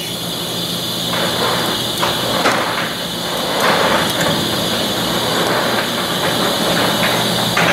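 Thermal desorption unit's rotary dryer running: a loud, steady machinery noise with a high hiss over it, and scattered irregular clanks from the turning drum.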